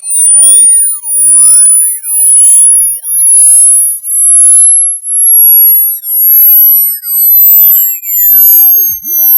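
Hearing-test tone: a single very high-pitched pure tone, pulsing about once a second and slowly rising in pitch. It climbs through the upper range of hearing to find the highest pitch the listener can still hear, which falls with age.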